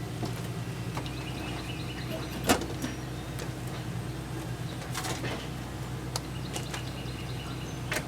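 Work noises from handling tools and hardware: scattered light clicks and a sharp knock about two and a half seconds in, over a steady low hum.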